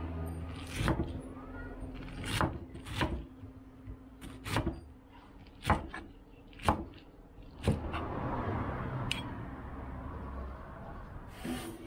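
Kitchen knife chopping pineapple on a wooden cutting board: about ten sharp knocks, unevenly spaced, roughly one a second.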